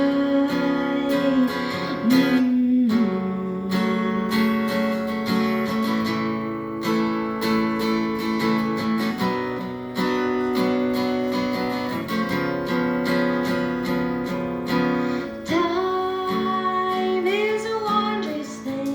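Acoustic guitar strummed in an instrumental break of a live song, with sustained melody notes, some of them bending, carried over the chords.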